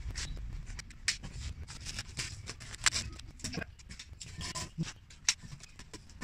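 Rustling and scraping of masking tape and paper being peeled off painted metal plates, with scattered light clicks and taps of a utility knife and hands on a wooden table.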